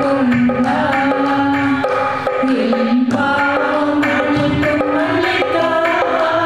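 A woman singing a Tamil Christian worship song through a microphone, accompanied by an electronic drum kit and keyboard playing a steady beat.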